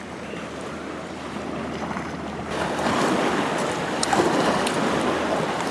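Waves washing on a rocky shore, with wind on the microphone: a steady rushing noise that grows louder about two and a half seconds in.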